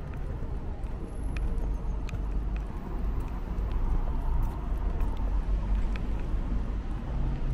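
Outdoor walking ambience: a fluctuating low rumble of wind on the microphone and road traffic, with footsteps on stone paving flags.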